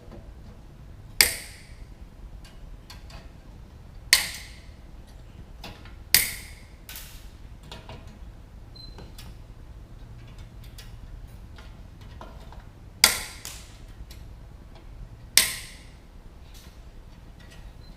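Wire cutters snipping off the ends of bare 14-gauge solid wire: five sharp snaps a few seconds apart, each ringing briefly, with fainter metal clicks between them.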